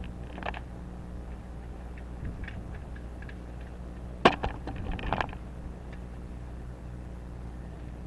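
A few sharp clicks and light knocks from handling a sealant tube and caulking gun, the loudest about four seconds in followed by a quick run of smaller ones, over a steady low hum.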